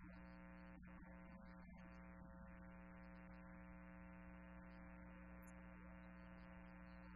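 Near silence with a steady, unchanging electrical hum.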